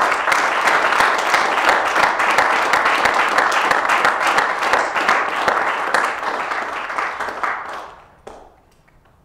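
Applause: a roomful of people clapping their hands for about eight seconds, thinning out and dying away near the end.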